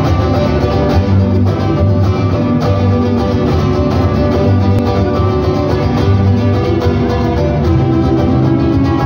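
Live music: a small acoustic guitar played, with an electric bass line underneath.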